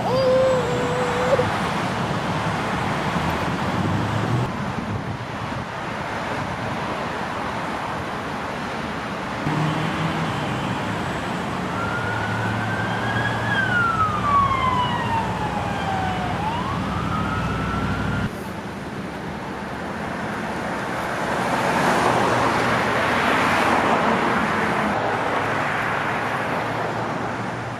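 Busy street traffic: a car horn honks briefly at the start, then vehicles pass steadily. About twelve seconds in, an emergency vehicle's siren rises and falls in pitch for several seconds and stops suddenly, and a louder swell of passing traffic follows a few seconds later.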